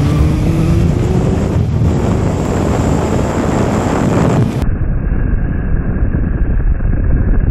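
Sport motorcycle riding at speed with heavy wind noise on the microphone, the engine note rising over the first couple of seconds. About two-thirds of the way through, the sound abruptly turns duller.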